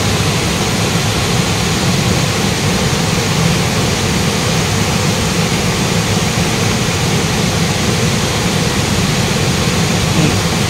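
River water rushing over rocks in rapids: a loud, steady rushing noise that does not change.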